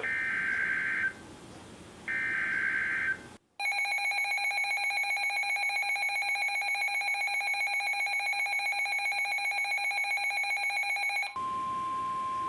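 Emergency Alert System signal on NOAA Weather Radio: two one-second bursts of warbling SAME data header tones, then a steady two-tone attention alarm with a slight pulsing for about eight seconds. Near the end it switches to a single steady warning alarm tone, announcing a severe thunderstorm warning.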